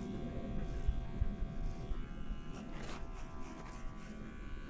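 Electric hair clippers buzzing steadily as they cut a man's hair, with a short burst of rasping about two and a half to three seconds in.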